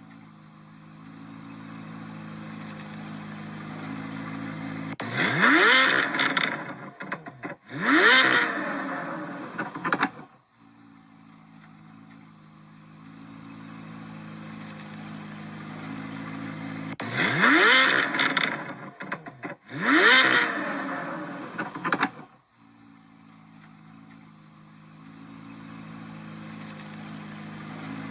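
Chevrolet Corvette C8 Z06's flat-plane-crank V8 exhaust idling, then revved twice in quick succession, each rev rising sharply and falling back to idle. The idle-then-two-revs sequence happens twice.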